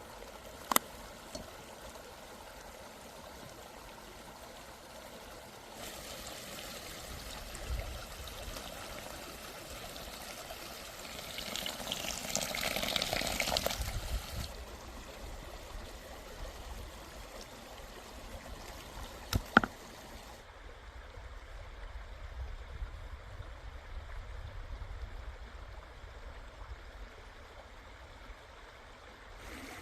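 A steady water-like rushing hiss that changes abruptly in character several times and swells for a few seconds near the middle. Two sharp knocks stand out, one under a second in and one about two-thirds of the way through.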